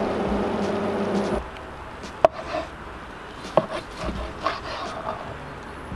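Large knife slicing cooked flank steak on a cutting board, the blade knocking sharply on the board about two seconds in and again about a second later, with fainter taps after. A steady low hum runs for the first second and a half, then cuts off.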